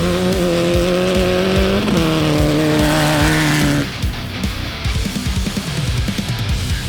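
Off-road race car engine revving hard, its pitch climbing, with a sudden drop like a gear change about two seconds in. The engine sound cuts off abruptly about four seconds in, leaving a heavy-metal music track with pounding drums.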